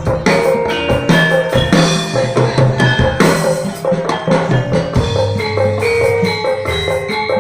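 Jaranan ensemble playing a busy rhythmic accompaniment: hand drums beating under a stream of short struck notes from tuned metal gongs and bars.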